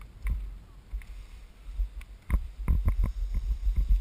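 Skis sliding and turning through heavy, slushy snow, with a steady low rumble and a run of sharp knocks and clatters, most of them in the second half.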